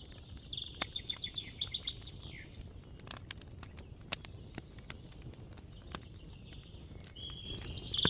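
A songbird singing quick, high trilled phrases, one in the first couple of seconds and another near the end, over a low outdoor hiss. Scattered sharp pops and crackles from a wood campfire are heard throughout.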